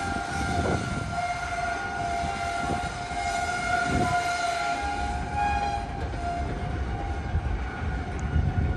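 Loaded gravel train of covered hopper cars rolling past: a low rumble with a few wheel thuds, under steady high-pitched tones that waver a little.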